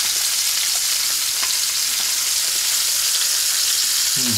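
Whole fish frying in oil in a pan: a steady, loud sizzle with a few faint pops.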